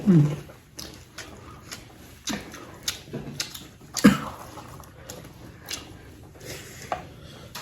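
Close-up mukbang eating sounds: a person chewing spicy chicken with irregular wet mouth clicks and smacks, a few of them sharper than the rest.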